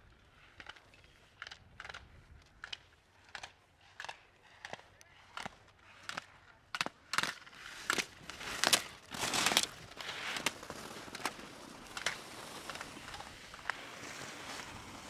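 A slalom racer's skis scraping on firm snow through a quick run of turns, about one and a half turns a second. The scrapes grow louder to a peak about halfway through, then give way to a steady hiss of snow and wind.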